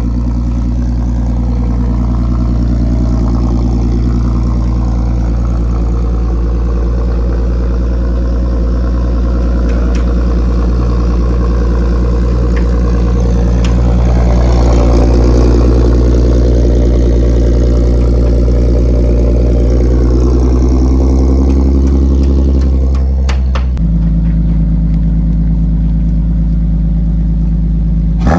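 Infiniti G37's 3.7-litre V6 idling after a cold start, through a full Motordyne exhaust with art pipes. It has a steady, deep exhaust note that swells a little around the middle. About 24 seconds in, the tone changes abruptly to a different steady idle.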